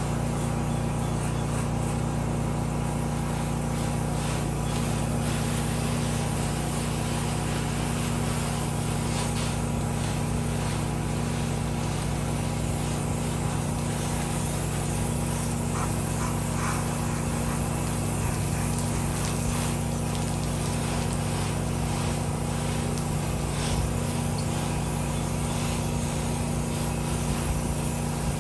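Gas engine of a pressure washer running steadily at a constant speed.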